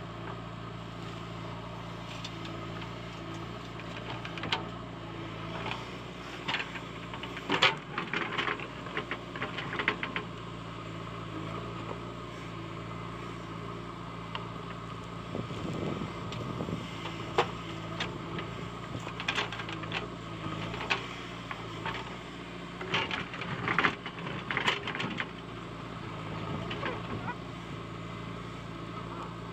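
JCB 3DX backhoe loader's diesel engine running steadily under load while the backhoe works. Bursts of clatter and scraping come from the bucket digging into stony soil and dumping it into the trolley, several times.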